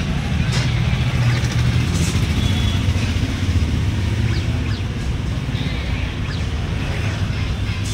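Steady low rumble of a running motor-vehicle engine.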